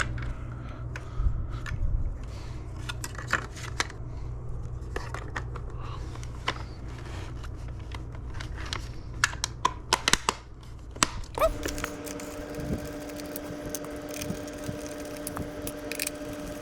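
Small irregular clicks, taps and scrapes of plastic parts of a Shark DuoClean vacuum's floorhead being handled and screwed back together, over a faint steady hum that changes about two-thirds of the way in.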